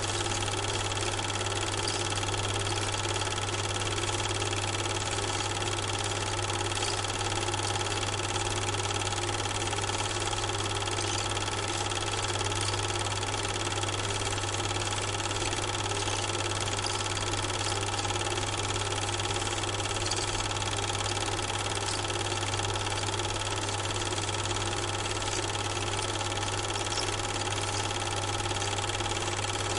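Steady mechanical hum like a motor running, with a strong low drone and several steady higher tones that stay unchanged throughout.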